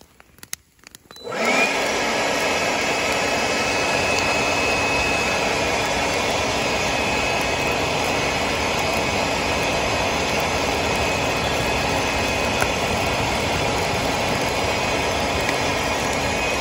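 DeWalt cordless leaf blower switched on about a second in, spinning up with a short rising whine, then running steadily at full speed, blowing air into the base of a brush fire.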